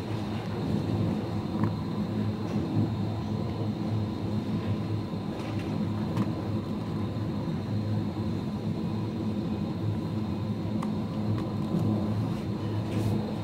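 Steady low hum and rumble of supermarket refrigerated display cases, with a faint steady whine above it and a few faint clicks.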